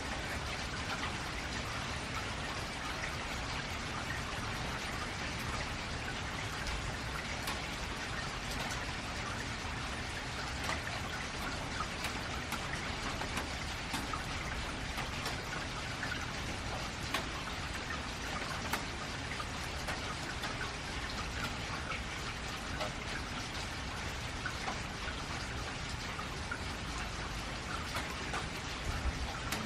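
Steady rain falling on a metal roof: a constant hiss full of separate drop ticks, with a few sharper ones standing out.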